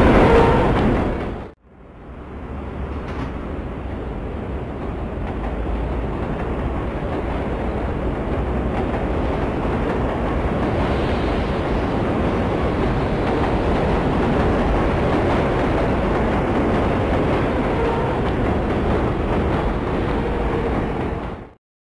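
New York City subway train running, heard from inside the car: an even rumble that cuts off abruptly about a second and a half in, then starts again, builds over several seconds and holds steady until it cuts off sharply near the end.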